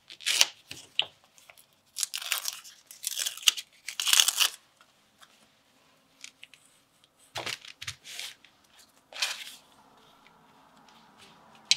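Fabric cutouts backed with Steam-a-Seam fusible web being peeled off parchment paper, the paper crinkling and the adhesive tearing away in short crackling bursts with pauses between.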